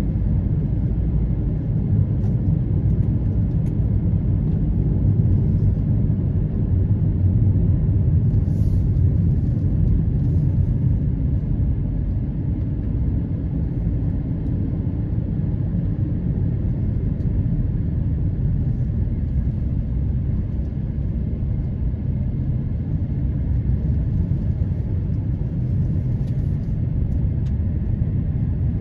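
Steady low rumble of a car's engine and tyres on a paved road, heard from inside the cabin while driving.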